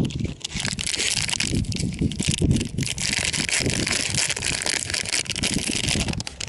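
Plastic snack-bar wrapper crinkling and crackling as it is torn open and handled, with wind buffeting the microphone underneath.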